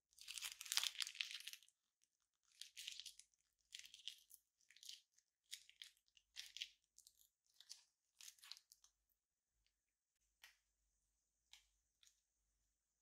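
Clear plastic piping bag crinkling as a hand squeezes clear slime out of it, in a series of faint crackly bursts, the longest at the start, thinning to a few separate ticks near the end.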